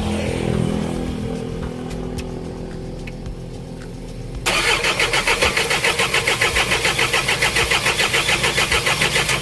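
An Isuzu 4HG1 four-cylinder diesel is cranked on its starter motor and does not fire. The cranking comes in suddenly about four and a half seconds in as an even pulsing, about eight beats a second, over a low steady hum. It is a no-start: no diesel reaches the opened injector line, a fuel-system fault that the video traces to a defective supply pump module.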